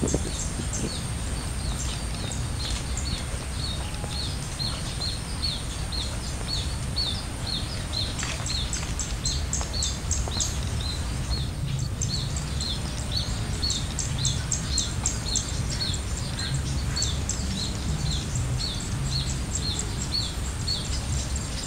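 Rural outdoor ambience: a bird chirping over and over, about twice a second, above a steady low rumble. A faint continuous high whine runs throughout, and a quicker high clicking call joins in about eight seconds in.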